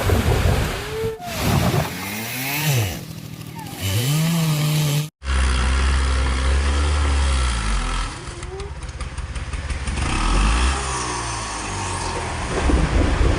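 Two-stroke chainsaw sawing a tree, its engine revving up and dropping back again and again. The sound breaks off for an instant about five seconds in.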